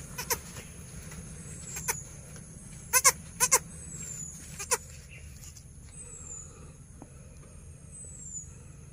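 Kid goat bleating in short, high-pitched cries: a few single cries, then two quick double cries about three seconds in, the loudest, and one more a little later.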